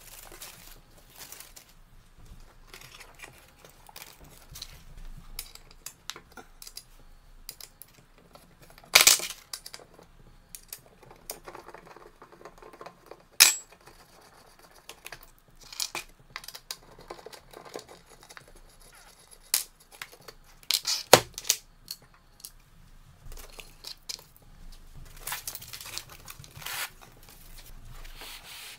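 Handling noises: scattered clicks and knocks of a hex key, screws and a fibreboard transport board, with rustling of board and foam, as a brass model locomotive is unscrewed and turned over onto a foam pad. A few sharp knocks stand out, about 9, 13 and 21 seconds in.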